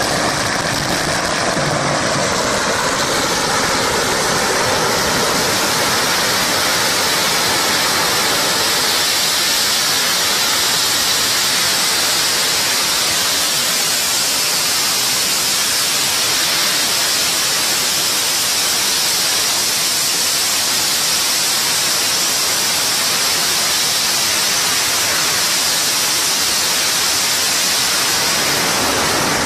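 Thousands of Chinese string firecrackers laid over the ground exploding together, the bangs so dense that they merge into one continuous, loud, even crackling noise that holds steady throughout.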